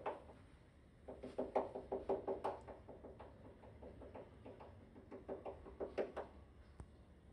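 Rapid knocking coming through the ceiling from the apartment above, about seven or eight dull knocks a second. It comes in two runs lasting a second or so each, the first about a second in and the second near five seconds.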